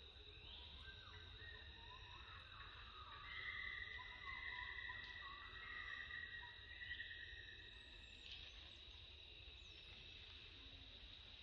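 Faint steady high-pitched insect drone, with a few short rising and falling chirps that are loudest in the middle.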